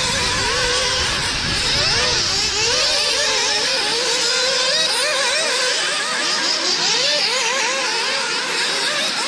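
Several small glow-plug nitro engines in radio-controlled racing buggies running at once, each pitch rising and falling quickly as the cars accelerate and brake round the track.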